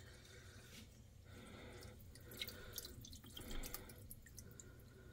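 Faint water trickling and dripping in a kitchen sink as a freshly snaked drain is tested with running water.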